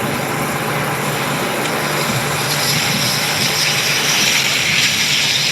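Street traffic on a wet road in the rain. A vehicle's tyres hiss as it passes, growing louder in the second half.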